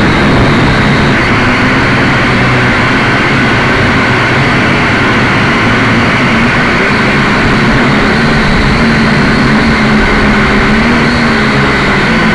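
A quadcopter's electric motors and propellers, heard up close through its onboard camera, running loud and steady, their pitch wavering slightly as the motors speed up and slow down.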